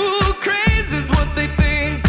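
Pop music with a steady drum beat and a wavering lead melody; a deep bass line comes in about two-thirds of a second in.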